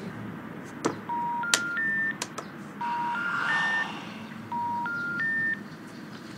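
Telephone special information tone heard through a mobile phone: three short beeps stepping up in pitch, played three times. This is the network signal that the number called cannot be reached, here a mobile that is not answering. A few sharp clicks come in the first two seconds.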